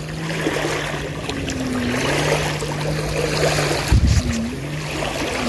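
Outdoor water and wind background under a steady low hum, with a short low thump about four seconds in.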